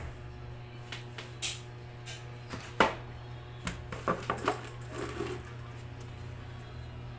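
Hard plastic parts of a stand fan knocking and clicking together as the pole is fitted onto the round base: a scattered run of sharp knocks, the loudest about three seconds in and a quick cluster a second later, over a steady low hum.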